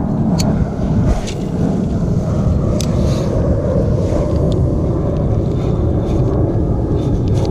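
Steady wind rumbling and buffeting on the microphone, with a few sharp clicks scattered through it.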